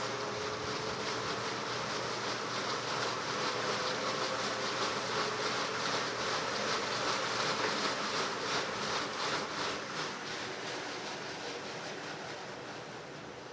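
Electrolux LTC15 top-load washing machine running with water swishing and churning in the tub. A quick rhythmic pulsing comes through in the middle, and the sound fades down toward the end.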